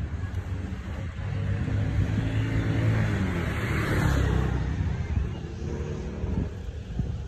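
A motor vehicle's engine passing close by, growing to its loudest about four seconds in and then fading, over a steady low rumble.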